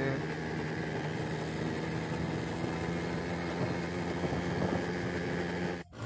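Motorbike engine humming steadily while riding, with road and wind noise; the sound cuts out for a moment near the end.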